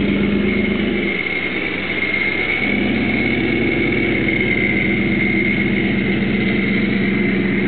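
Supercharged 1989 Pontiac Trans Am GTA V8 idling, a steady low exhaust rumble with a steady high whine over it. The low rumble drops back briefly between one and two and a half seconds in, then returns.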